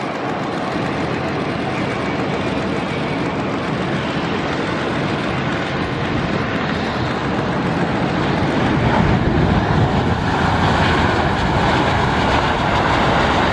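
Boeing 787 Dreamliner's Rolls-Royce Trent 1000 jet engines running steadily as the airliner lands. About nine seconds in the engines get louder as reverse thrust is applied on the landing rollout.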